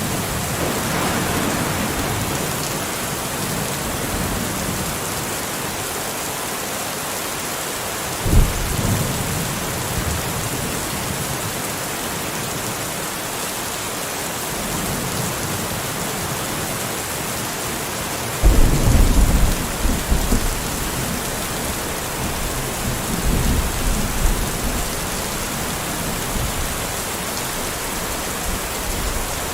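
Steady rain with thunder: a short low clap about eight seconds in, then a longer low rumble starting a little past halfway, with more rumbling after it.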